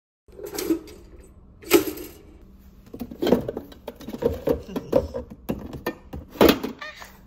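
Bottles and jars knocking and clinking as a hand rummages through a refrigerator's shelves and door. There are two sharp knocks in the first two seconds, then a busier run of clatter.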